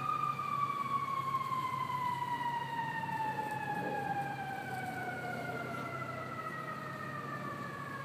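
A siren winding slowly down, one steady tone with overtones that falls gradually in pitch and fades a little, over a low steady hum.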